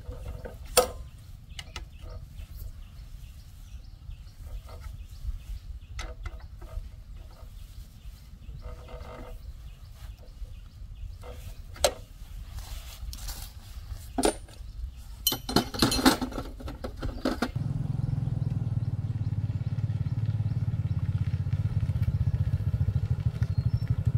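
Scattered metal clicks and knocks over a low rumble, then about seventeen seconds in a tractor engine catches and runs steadily with a fast, even beat, louder than what came before.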